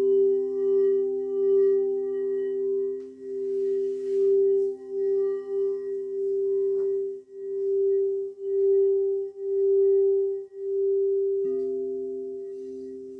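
Singing bowls sounding in a long sustained ring of two steady tones, one low and one a little higher, swelling and fading about once a second. Near the end the lower note shifts slightly as a fresh tone comes in.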